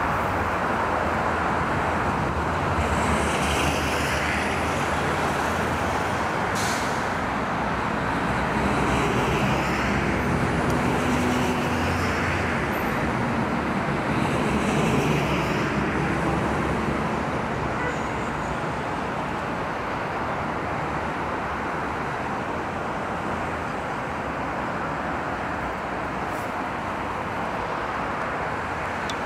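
Steady road traffic noise from a nearby highway, swelling a few times as vehicles pass.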